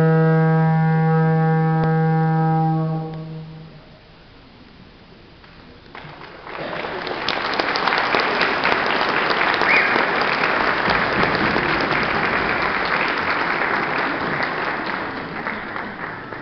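A low, steady instrumental note, brass-like, is held and fades out about three seconds in. After a short lull, an audience applauds for about ten seconds, dying down near the end.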